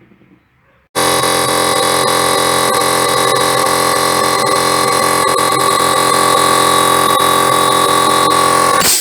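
Electric air compressor starting suddenly about a second in and running loud and steady with a high whine, then shutting off near the end with a short burst of hiss.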